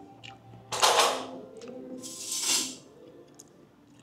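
Two loud slurps of pho broth and noodles from a spoon, about a second in and again a little over two seconds in, with light clicks of the spoon. Faint background music plays throughout.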